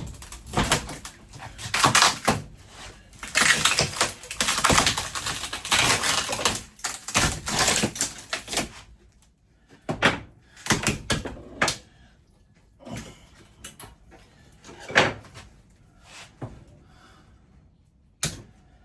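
Interior fittings of a 1972 Winnebago Brave being wrenched out by hand, unscrewed only in part: a dense run of scraping and knocking for about nine seconds, then scattered single knocks and bangs.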